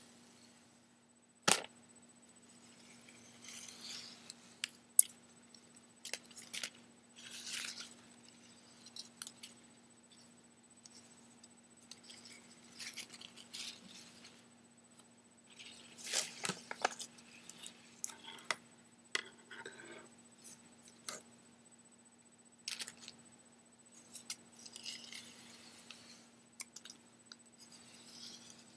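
Strips of red ribbon being handled and rubbed against a wooden tabletop: intermittent rustling and crinkling with scattered sharp clicks and taps, the sharpest about a second and a half in.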